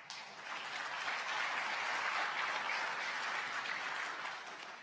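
A congregation applauding, the clapping swelling up quickly and then fading away.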